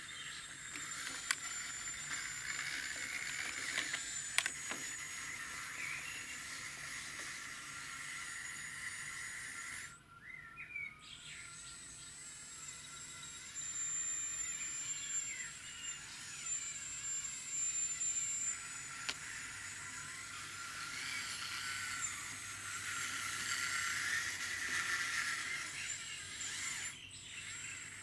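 High, thin electric whine of an RC4WD EX4200XL scale excavator's brushless track drive motors as it crawls along at slow speed. The whine cuts out briefly twice, where the tracks stop. Birds chirp in the background.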